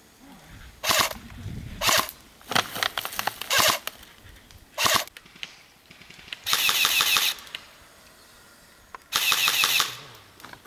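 Airsoft rifles firing: single shots and short strings through the first half, then two full-auto bursts of under a second each, the second about three seconds after the first.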